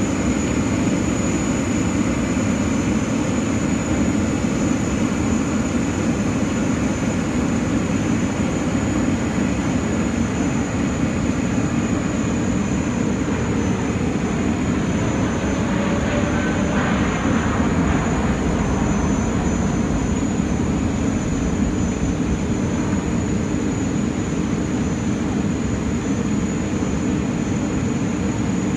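Boeing 787 airliner's jet engines heard as it flies a display pass, a steady deep rumble with a faint falling whine about halfway through as it passes closest.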